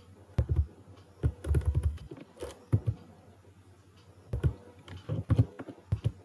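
Computer keyboard typing: irregular keystrokes, some single and some in quick runs, with a pause of about a second near the middle.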